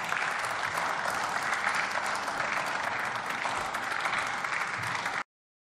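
Members of parliament applauding in the plenary chamber, with steady clapping that cuts off suddenly about five seconds in.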